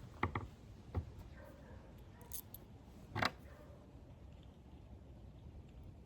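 A few light clicks and taps of small plastic parts being handled while a new primer bulb is pressed into a backpack blower, the loudest about a third of a second and about three seconds in.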